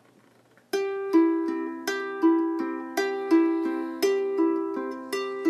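Instrumental intro on a plucked string instrument: a steady fingerpicked pattern of ringing single notes, about three a second, starting just under a second in.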